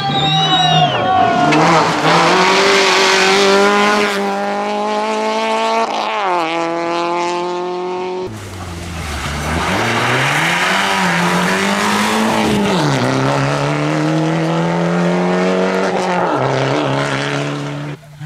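Rally cars driven flat out on a gravel stage: the engines rev hard, their pitch dropping at each gear change or lift and climbing again, over gravel noise from the tyres. About eight seconds in the sound cuts to another car, a Fiat Punto Abarth, whose revs fall low under braking and then rise again as it accelerates out of a sliding gravel corner.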